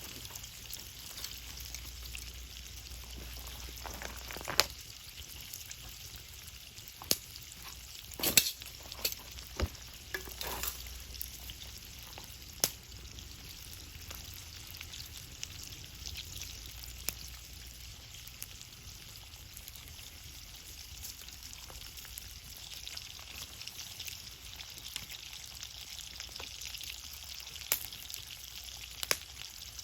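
Cooking over a wood-and-charcoal fire: a steady sizzling hiss with sharp crackling pops now and then, several close together about eight to eleven seconds in.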